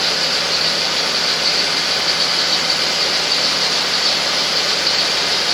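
1997 Audi A8's 4.2-litre V8 engine idling steadily, with cylinder 3 misfiring from a bad coil pack.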